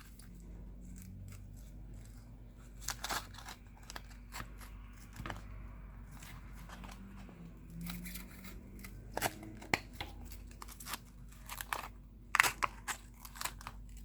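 Plastic pry card sliding through the adhesive under a Samsung Galaxy S10 Plus back glass, with scattered crackles and sharp clicks as the glue separates from the glass. The clicks are most frequent in the second half.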